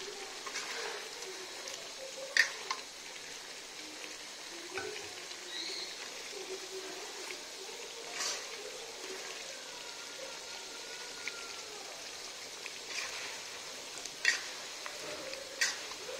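Chicken pieces sizzling and bubbling in korma gravy in a karahi as they are stirred, with a metal skimmer clinking and scraping against the pan several times.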